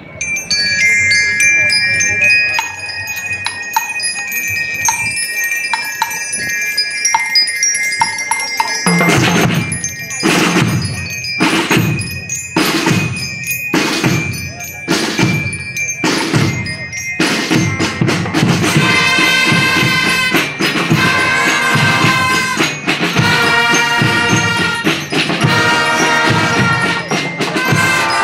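Student marching band playing: ringing bells, as from bell lyres, carry a melody, then steady drum strokes about once a second come in partway through, and the full band joins with pulsing chords in the last third.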